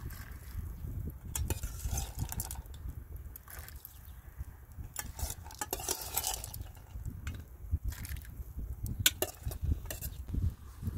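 A metal ladle clinking against a pot and an enamel bowl as dried chickpeas are tipped into a pot of broth with small splashes. The clinks are scattered, with a busier cluster a little past the middle, over a steady low rumble.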